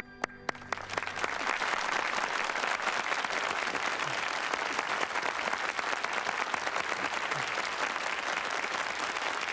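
Concert audience applauding: a few scattered claps as the orchestra's last held chord dies away, swelling within about a second into full, steady applause.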